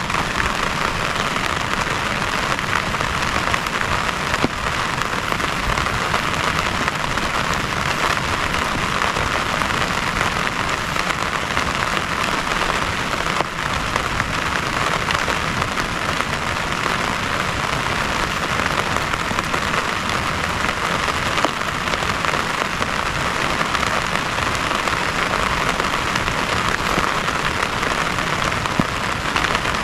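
Heavy rain falling steadily, a dense even hiss with a few sharper drop hits now and then.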